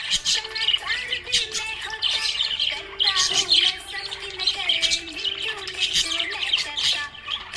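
Budgerigars chirping in a fast, continuous stream of short high chirps.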